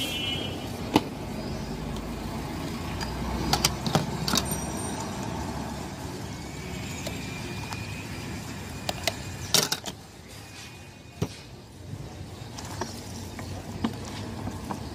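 Steady street traffic noise, with a few sharp clicks and knocks from plastic bottles and containers being handled. The loudest clicks come about nine and a half seconds in.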